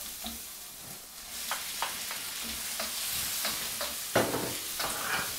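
Pieces of pork stomach and bell pepper sizzling in oil in a hot wok while being stir-fried, the sizzle swelling about a second in as they go into the pan. A wooden spatula scrapes and knocks against the wok several times, loudest about four seconds in.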